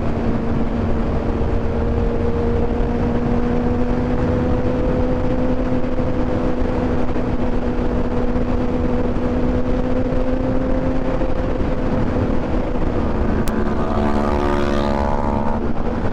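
Kawasaki motorcycle engine running at a steady pitch while riding, under heavy wind rush on the microphone. About two seconds before the end, the steady note gives way briefly to a different, richer whine.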